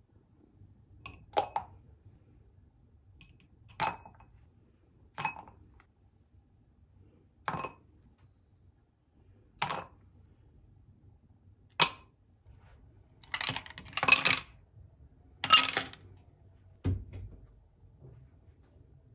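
Dishes clinking as they are set down one at a time, about every two seconds, then a quicker clatter of a few pieces, and a dull thump near the end.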